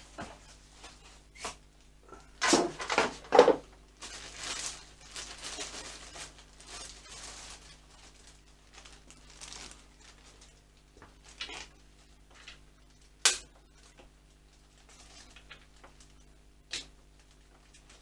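Handling noises: knocks, clicks and rustling as parts are picked up and moved about. The loudest is a quick cluster of knocks about two and a half seconds in, and a sharp click comes about thirteen seconds in, all over a faint steady hum.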